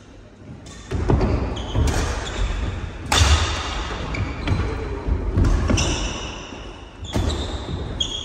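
Badminton doubles rally on a wooden hall court: rackets striking the shuttlecock in several sharp hits about a second apart, starting about a second in, mixed with players' footwork on the floor, echoing in the large hall.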